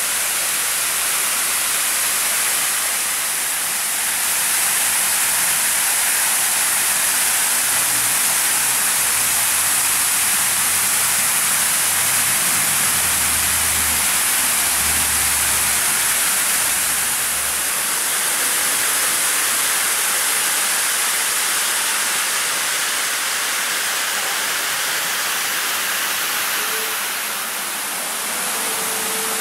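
El Alamein Fountain's dandelion-shaped spray head throwing water into its basin, a steady high hiss of falling spray. A low rumble joins in for a few seconds in the middle.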